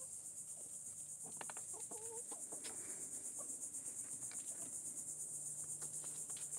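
Chickens clucking in their coop, a cluster of short wavering calls about one to three seconds in, over a steady, high, pulsing chirring of insects.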